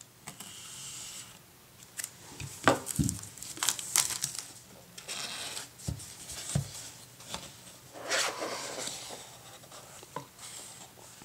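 Cardboard product box opened by hand: cardboard scraping and rubbing as the parts slide apart, with several short knocks and taps as the box is handled.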